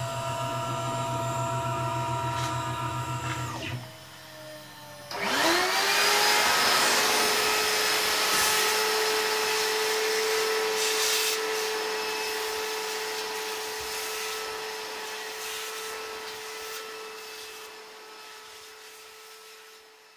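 A machine runs and is switched off about four seconds in, its pitch falling as it winds down. About a second later a vacuum cleaner starts, its motor whine rising as it spins up, then runs steadily as the hose nozzle sucks wood chips off the freshly milled workpiece, slowly fading toward the end.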